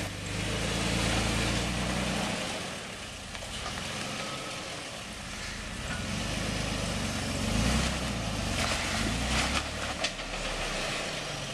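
Toyota Tacoma pickup's engine revving up and down as the truck crawls over a rock ledge, its pitch rising and falling with the throttle and swelling loudest about a second in and again near the middle.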